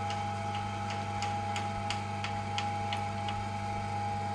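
Belt-driven potter's wheel spinning: a steady motor hum with a regular tick about three times a second.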